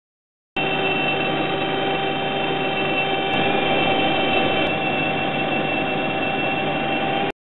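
Gingery lathe's motor-driven spindle running at a steady speed, a steady mechanical whir with a few held whining tones; it cuts in abruptly about half a second in and cuts off just before the end. The spindle turns freely in the newly fitted spindle lock, without binding.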